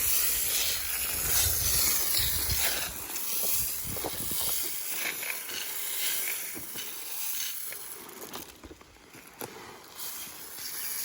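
Rustling and hissing noise with scattered clicks, a low rumble in the first few seconds, and insects buzzing high and steady throughout.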